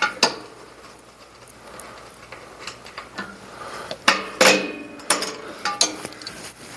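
Scattered metallic clicks and clanks of hand tools and bolts being worked on a Brunswick A2 pinsetter's steel frame, with a loud ringing clank about four seconds in and a few sharp clicks after it.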